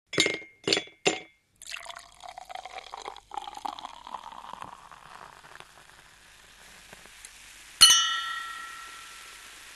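Three quick glass clinks, then liquid pouring into a glass for several seconds, and one bright glass clink near the end that rings on and slowly fades.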